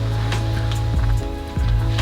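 Background music: a mellow pop track with a steady bass and beat.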